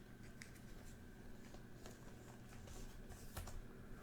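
Faint scattered clicks and soft rustles of trading cards being handled and slid against one another, over a low steady room hum.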